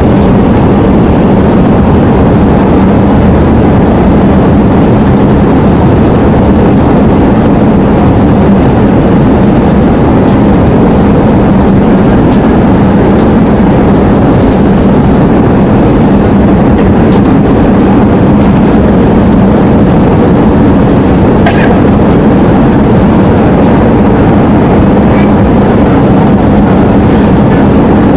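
Jet airliner cabin noise on approach: the steady, loud rush of the engines and airflow, with a low hum underneath.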